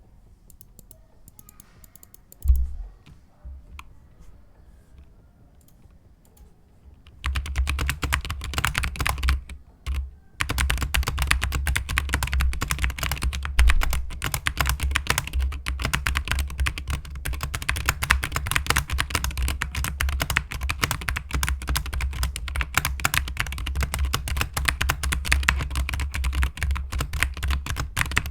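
SteelSeries Apex Pro TKL keyboard with OmniPoint adjustable switches being typed on. It starts quiet with one thump, then from about seven seconds in a fast, dense run of key clacks goes on, with a brief pause near ten seconds.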